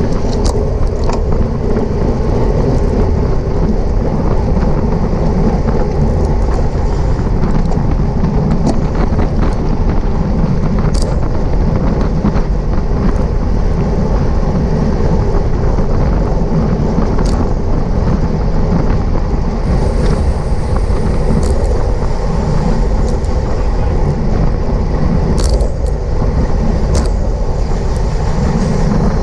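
Steady rush of wind and road noise on the microphone of a racing cyclist's camera, with occasional sharp clicks.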